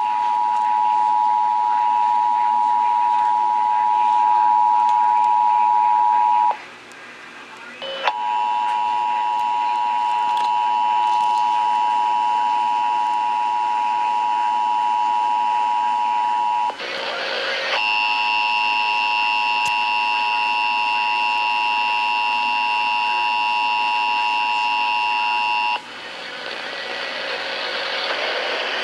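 Emergency Alert System attention signal: a steady, loud two-tone beep near 1 kHz. It cuts out twice, at about six and a half seconds and again near seventeen seconds, and each time it comes back brighter and harsher, with higher tones added. It stops a few seconds before the end, leaving a rising hiss.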